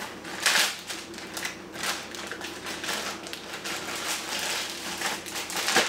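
Plastic zipper bags rustling and crinkling as raw meat is tipped and packed into them, with louder crackles about half a second in and again near the end.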